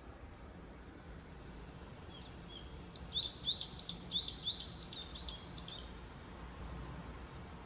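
A bird chirping: a quick run of about eight short, high chirps about three seconds in, over steady low background noise.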